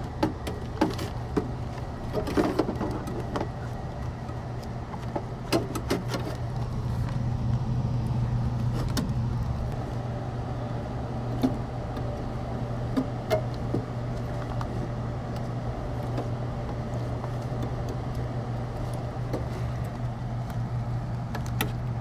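90% Carrier gas furnace running with a steady low hum, with scattered light clicks and knocks from plastic drain fittings being handled beneath it.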